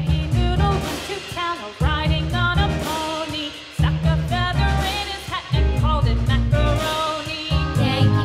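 Background music: a melodic lead over a bass line that changes note about every two seconds.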